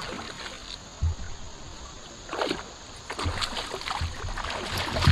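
Water splashing and sloshing at a fishing kayak, with a few low knocks against the hull, the first about a second in.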